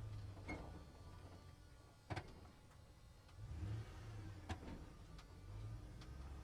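Truck driving: a low engine rumble that swells and eases, with scattered rattles and clicks and two sharp knocks, about two seconds in and about four and a half seconds in.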